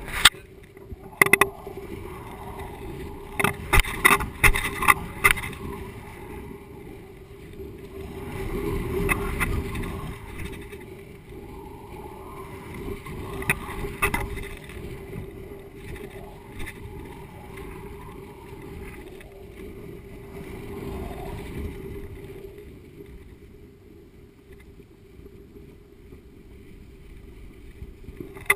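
Wind rumbling and buffeting on the microphone of a GoPro camera swinging beneath a kite as it climbs, with a steady low hum beneath. A cluster of sharp knocks and rattles from the swinging camera rig comes in the first few seconds, another knock mid-way.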